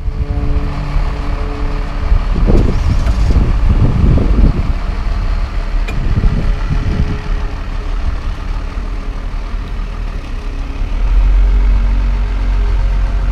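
Old truck's engine running with a heavy low rumble, the revs surging up and down several times in the first half, and the rumble growing louder near the end.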